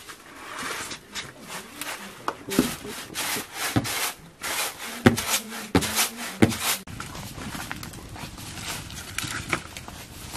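Woven bamboo winnowing basket being rubbed and shaken by hand: scraping swishes with sharp clicks and knocks. From about seven seconds in, these give way to a steadier hiss.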